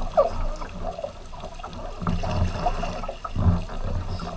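Kayak paddles dipping and pulling through lake water, with splashing and gurgling as the tandem kayak moves along.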